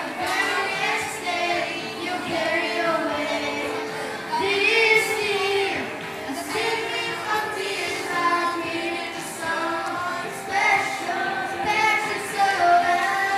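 A song with young voices singing over backing music, played for a children's dance number.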